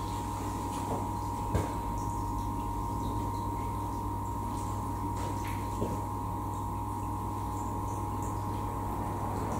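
Inch-and-a-half water pump running steadily as it fills the flood test tank through a hose: a constant hum over the wash of flowing water, with a light knock about one and a half seconds in.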